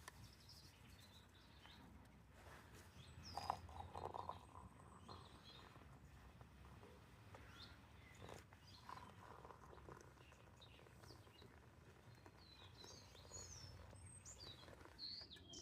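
Faint wild birdsong: scattered short, high chirps and calls over a quiet outdoor background, with one slightly louder call about three seconds in.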